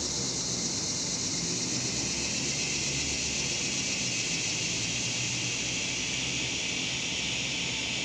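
Steady, high-pitched chorus of insects at dusk, typical of cicadas, running without a break; a lower layer of the buzz swells in about halfway through.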